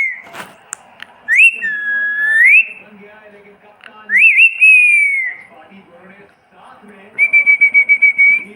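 Pet parrot whistling: three loud, clear whistled phrases, first a rising note that dips and holds a long level tone before sweeping up, then a note that rises and slides slowly downward, and near the end a fast run of about nine short repeated whistle notes a second on one pitch.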